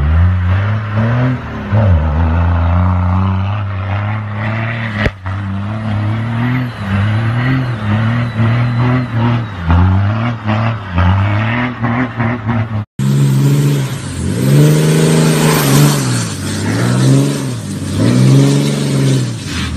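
A lifted Dodge Ram pickup's engine revving hard in repeated rising and falling surges, about one a second, as the truck spins its tires in loose dirt. The sound breaks off abruptly about five and about thirteen seconds in, and the last part is the loudest.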